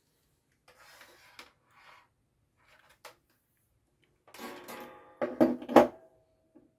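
A push-button unit with its contact block and metal mounting bracket being handled and set down on a desk: light rustling and a click, then a short clatter ending in three sharp knocks close together, followed by a faint ringing tone.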